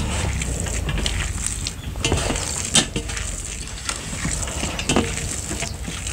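Tableware clatter: spoons and fingers clinking and scraping against stainless-steel plates and bowls while people serve curry and eat by hand. A few sharper clinks, the loudest about three seconds in.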